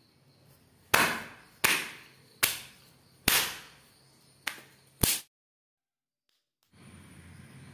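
A thin, oiled sheet of wheat parotta dough slapped down onto a stone countertop six times, each a sharp smack, roughly one every second. After that it cuts to a brief silence, then a faint steady background noise.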